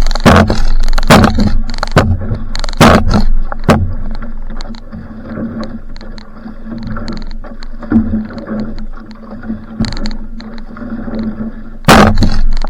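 Va'a outrigger canoe under way: water rushing and splashing against the hull, with loud irregular gusts or splashes hitting the microphone in the first few seconds and again near the end, quieter in between.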